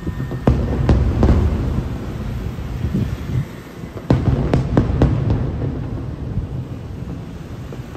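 Aerial firework shells bursting at a distance: sharp bangs, three about half a second to a second and a half in and a quick cluster of five about four to five and a half seconds in, over a continuous low rumble of echoing booms.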